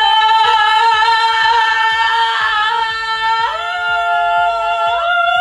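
Outro music: three long held notes with a slight waver, each a step higher than the last, over a steady beat.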